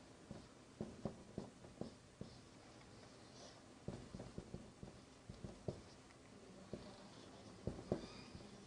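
Marker writing on a whiteboard: faint, irregular short taps and scratches as letters are drawn, in three bursts with brief pauses between them.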